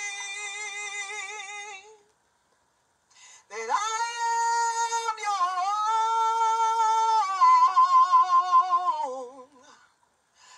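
A woman singing a slow gospel song solo and unaccompanied, holding long notes with a wavering vibrato. She breaks off about two seconds in, comes back about a second and a half later with a long held note, and trails off near the end.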